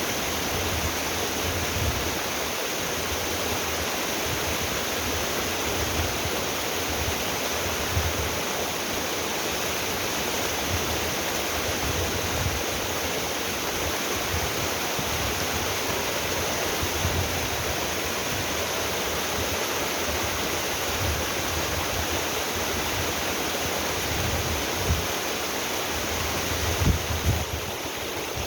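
Mountain waterfall and stream pouring steadily: a constant, even rush of water with uneven low rumbling swells beneath it.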